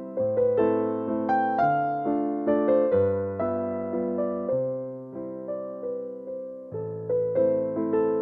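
Background music: a soft piano melody of struck notes and chords, each fading after it is played.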